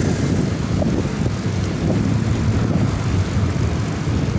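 Steady low rumble of wind buffeting the microphone of a camera riding along on a bicycle.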